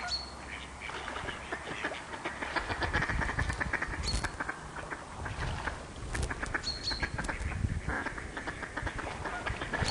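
Waterfowl calling off the loch: bouts of rapid, rasping quack-like calls, with a brief high whistled note three or four times and a low rumble underneath.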